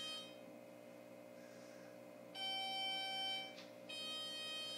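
A two-note electronic chime, one note about two seconds in and a second, different note just after, with the tail of an earlier note at the start. Under it runs the steady hum of the stationary BEC819 train's on-board equipment.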